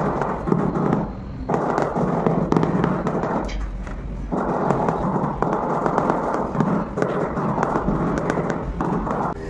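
Rubber mallet tapping a marble door threshold down into its mortar bed, a quick run of dull knocks with short pauses about a second in and near four seconds in.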